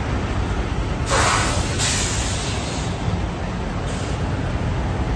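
Steady low rumble of diesel truck engines idling, with a burst of air hiss about a second in that lasts some two seconds and a short second hiss near the end.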